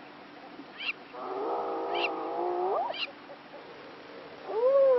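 Spotted hyena whooping: one long whoop held on a low, wavering pitch that sweeps sharply upward at its end, then a second rising whoop starting near the end.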